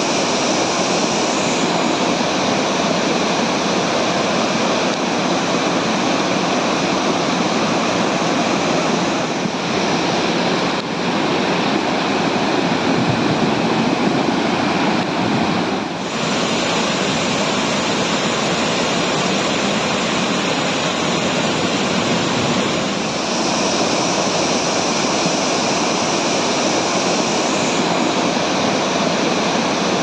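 Muddy flash-flood water rushing through a river channel: a steady, loud rush of churning water that shifts slightly in tone a few times.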